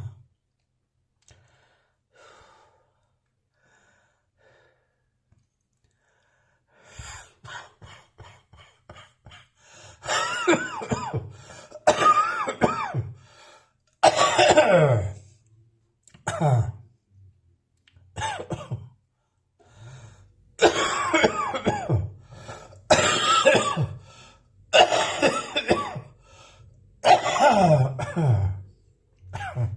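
A person's residual dry cough with a slight wheeze. After a quiet stretch come a run of quick short coughs, then about ten louder coughing bouts roughly every two seconds, each dropping in pitch.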